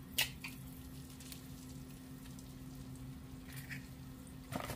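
Eggs frying in oil in a pan with faint crackling, over a steady low hum. A sharp crack about a fifth of a second in as a raw egg is broken open over the pan, then a short cluster of taps near the end.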